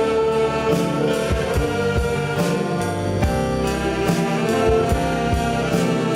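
Saxophone orchestra playing a slow ballad, tenor saxophone carrying the melody in held notes over the ensemble, with drums keeping a steady beat.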